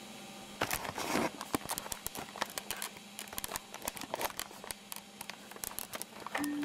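Irregular clicking and crackling, with a denser crackly burst about a second in, then scattered clicks. A few held music notes come in at the very end.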